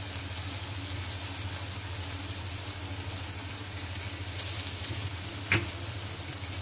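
Rava uttapam frying in oil on a flat griddle (tawa): a steady sizzle with faint crackles over a low hum, and one brief louder sound about five and a half seconds in.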